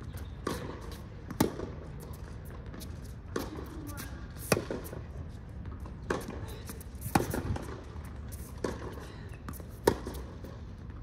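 Tennis rally: a ball being struck back and forth by racquets, with sharp pops about every second or so. The loudest hit comes about every three seconds and softer ones fall between.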